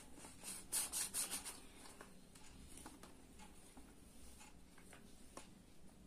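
Steel tumbler rim pressed and twisted through a bread slice against a steel plate: a cluster of short rasping scrapes about a second in, then faint scattered ticks and rustles as the crust is pulled away.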